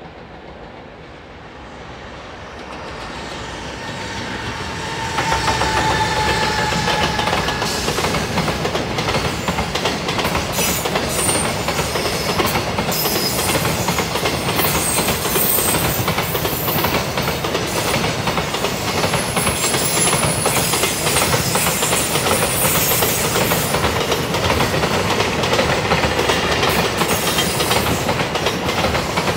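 Container freight train hauled by an EF210 'Momotaro' electric locomotive approaching and then passing close by. The sound grows louder for about five seconds, then holds as a loud, steady rumble and clatter of wagon wheels on the rails, with a few brief high squeals.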